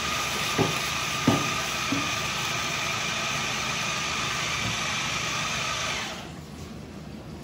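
An electric kitchen appliance running with a steady whirring hiss and a faint whine, which shuts off about six seconds in. A few soft knocks sound in the first two seconds.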